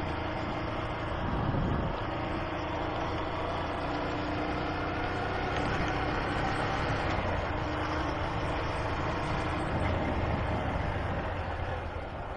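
Honda CG 125 Fan motorcycle's single-cylinder four-stroke engine running at a steady cruise on the move, over road and wind noise, easing off slightly near the end.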